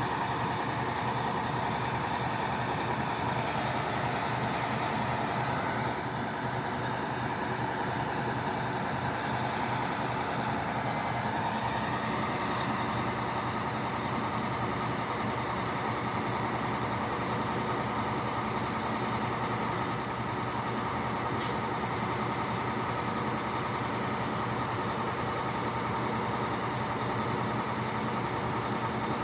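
Maco drilling rig's engine running steadily, its tone shifting slightly twice.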